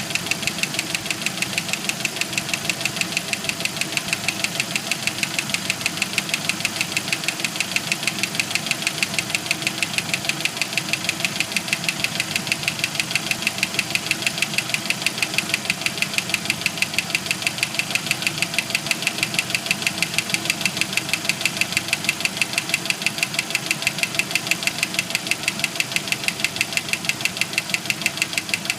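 1991 Jeep Wrangler YJ's 2.5 L four-cylinder engine running steadily with a loud, rapid, regular knock. The owner takes the knock for a broken piston skirt and failed lifters on cylinders 2 and 4.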